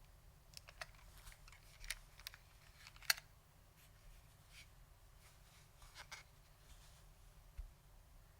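Scattered keystrokes on a Lunar AEK 65 keyboard with clicky SKCM Blue Alps switches, foam-damped, with PBT keycaps. The clicks come irregularly, bunched in the first three seconds, then a few more around six seconds and one near the end.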